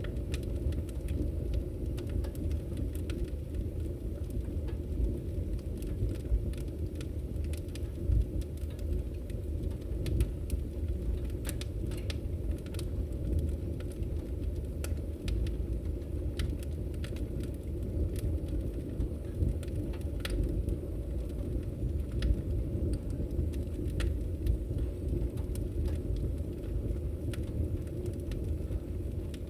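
Fireplace fire crackling: a steady low rumble of burning with a dense scatter of sharp crackles and pops at irregular times, a few of them louder snaps.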